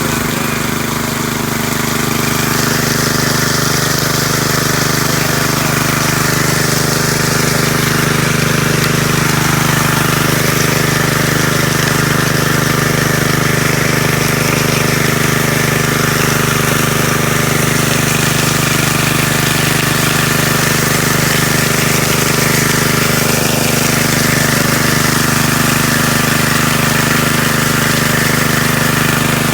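An engine running steadily at constant speed, an even hum that does not change through the whole stretch.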